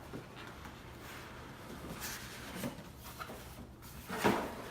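Faint handling noises of an airsoft M4 rifle and its packaging being moved and rubbed, with a few light knocks and one brief louder sound near the end.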